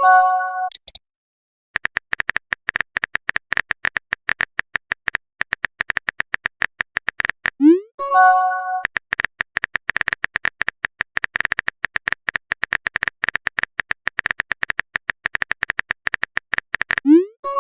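Fast, steady run of keyboard-typing click sound effects, as in a texting-app chat. About eight seconds in and again near the end, a short rising swoop and multi-tone chime sound as a message notification.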